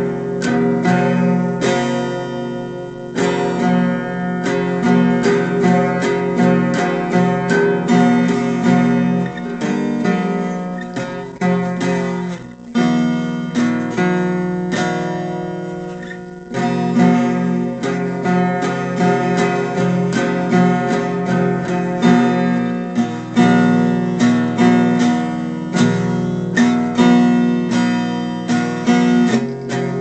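Acoustic guitar music: strummed chords with a steady rhythm, dropping quieter for a few seconds around the middle before picking up again.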